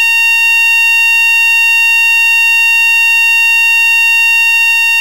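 A loud, steady electronic beep tone at one unchanging pitch.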